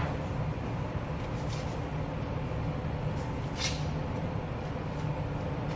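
Kitchen knife peeling and trimming a red onion: a few soft clicks and scrapes, the clearest about three and a half seconds in, over a steady low machine hum.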